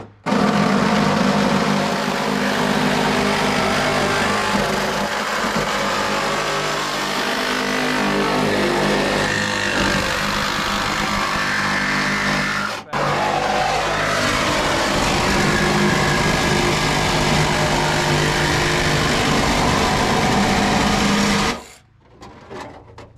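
Milwaukee cordless angle grinder with a cut-off wheel running under load, cutting through the steel body of a Ford Explorer. It runs in two long passes with a brief stop about 13 seconds in, and the pitch wavers as it bites into the metal. It shuts off shortly before the end.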